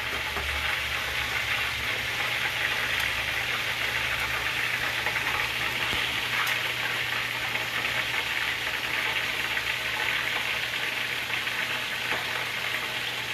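Shrimp and vegetable stir-fry sizzling steadily in hot oil on high heat, with a steady low hum underneath.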